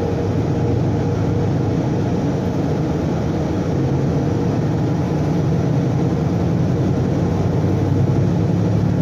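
Diesel railcar engine running with a steady low hum, heard from inside the passenger cabin as the train moves slowly through a station; the pitch shifts slightly about four seconds in.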